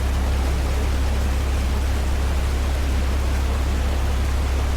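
Game-drive vehicle's engine running steadily: a constant low drone under an even hiss.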